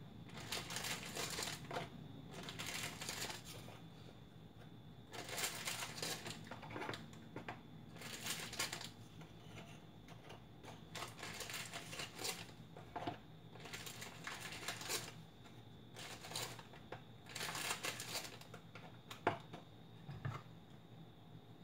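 Crinkling of the plastic wrapper on a sleeve of Marie biscuits as biscuits are pulled out of it, in short irregular rustling spells every second or two, with light clicks and a sharp tap near the end.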